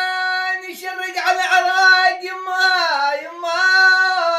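A young man singing an unaccompanied Syrian folk lament in a high voice: a long held vowel, then a run of wavering, ornamented notes, then another long held note near the end.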